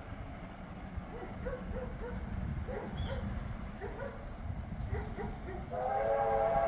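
A dog barking in a string of short yelps, over low wind rumble on the microphone. Nearly six seconds in, the steam whistle of locomotive R761 starts up: a loud, steady chime of several tones held together.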